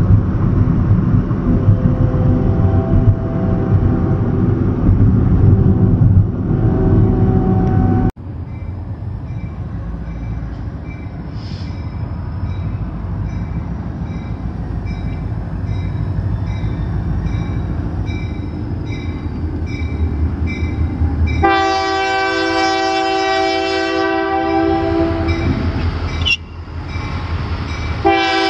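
Union Pacific GP40N diesel locomotive approaching a grade crossing: its engine rumbles under a faint bell ringing about twice a second, then its horn sounds one long blast of about five seconds and starts another near the end. The first eight seconds are road and engine noise heard from inside a moving car, ending in a sudden cut.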